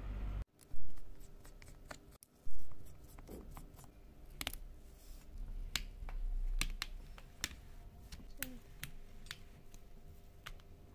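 Sharp little clicks and light scraping of a plastic opening pick and fingers working along a smartphone's edge, with two louder sharp sounds in the first few seconds.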